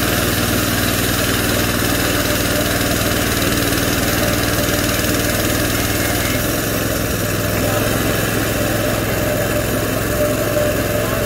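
Small single-cylinder gas engine of a DIY bandsaw mill running steadily, with a slight change in its tone about six seconds in.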